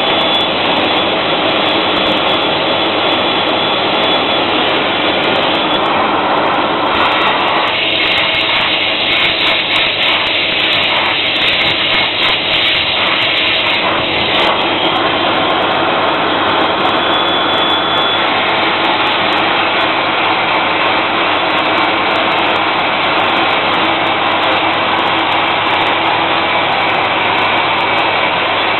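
Vacuum motor of a carpet cleaning machine running steadily with a thin whine, its hand tool sucking on the carpet. The hiss turns rougher and denser between about six and fourteen seconds in, while the tool is worked over the wine stain.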